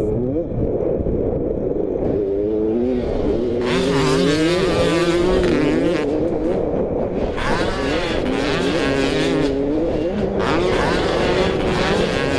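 Motocross bike engine revving up and down as it is ridden, its pitch climbing and dropping every second or so.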